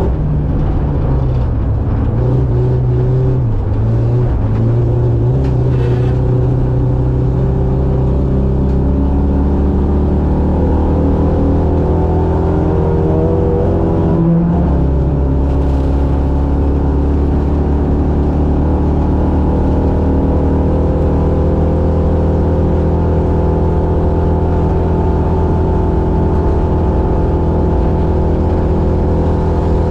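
Racing buggy engine running continuously at a fairly held speed. Its pitch wavers up and down a little over the first several seconds, jumps briefly about halfway through, then holds steady.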